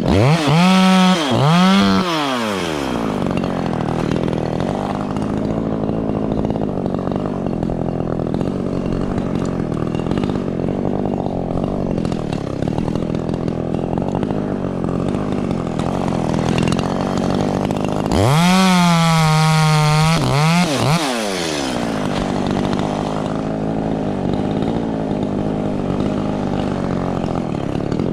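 Echo CS-3510 two-stroke chainsaw. It revs up and drops back twice in quick succession at the start, runs more steadily and a little quieter through the middle, then is held at high revs for a few seconds about two-thirds of the way in before falling back.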